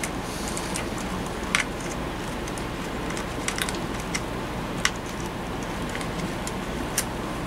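Scattered light clicks and ticks of fingers handling wires and a capacitor inside a tube tester's wired chassis, over a steady background hum.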